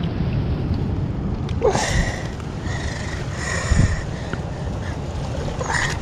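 Wind buffeting the action-camera microphone in a steady low rumble, with surf washing against the rocks. A brief gliding squeak comes about two seconds in.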